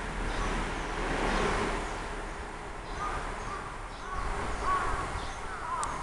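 Crows calling from a bare tree: short calls that start about halfway through and come more often near the end, over a steady low background rumble.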